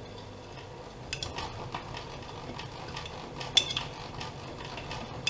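Privileg Dynamic 7420 washing machine running, with a steady motor hum. From about a second in there are irregular metallic clinks and clicks, the loudest about three and a half seconds in.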